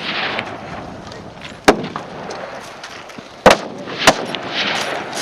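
Gunfire on an outdoor live-fire range: three loud, sharp single shots, not bursts. The first comes just under two seconds in, and two more follow close together, half a second apart, a little under two seconds later.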